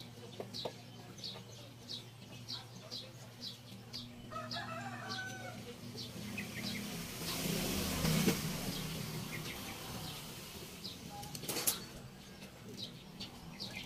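Compressed air hissing for a couple of seconds, swelling and fading about seven seconds in, then a second brief hiss near the end, over a steady low hum. A small bird chirps about every half second in the background.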